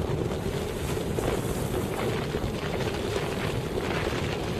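Steady wind buffeting the microphone, over shallow sea water washing across a reef.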